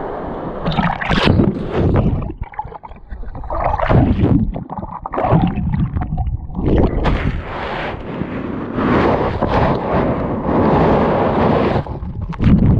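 Surf washing over a camera held in the water, which goes under: loud, uneven splashing and churning of turbulent water in repeated surges, muffled while submerged.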